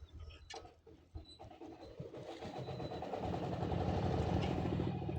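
An engine running with a steady fast pulse, growing louder over the first few seconds and then holding, after a few sharp knocks.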